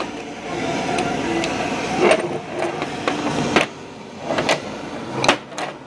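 A few sharp knocks and clicks of metal engine parts, pistons on connecting rods, being handled and set down on a steel workbench, over steady shop background noise.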